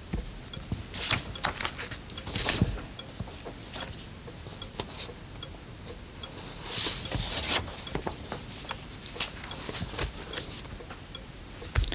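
Sheets of paper being handled at a desk, rustling as they are lifted, turned and shuffled, among small taps and scratches of a ballpoint pen. The loudest rustles come about two and a half seconds in and again around seven seconds, and a sharp knock comes just before the end.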